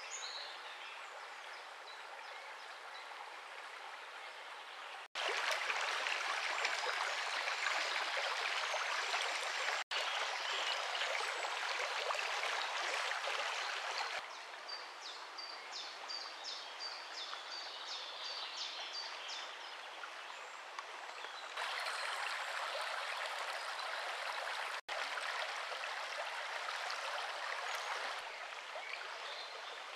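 Shallow river water rippling steadily over stones. The sound cuts out for an instant three times and comes back louder or softer each time. Midway, a bird calls in a quick series of short high notes.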